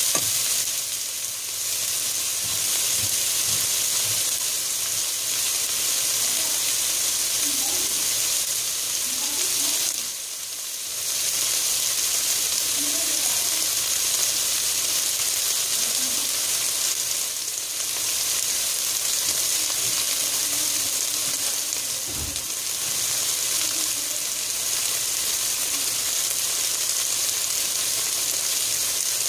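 Chopped onions, bell peppers and tomatoes sizzling in hot oil in a nonstick pot, a steady frying hiss that dips briefly about ten seconds in. A spatula stirs through the vegetables near the start.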